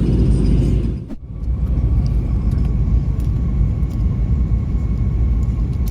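Steady low rumble of a moving vehicle, dropping away briefly about a second in and then returning.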